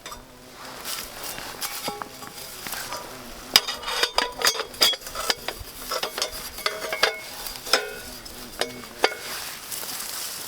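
Metal pieces clinking and clanking against each other in an irregular run of sharp strikes, several of them ringing briefly after the hit, as metal camp gear is handled.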